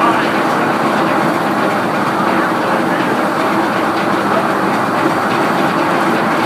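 Sawmill machinery running steadily, a loud continuous clatter with a steady mechanical hum underneath.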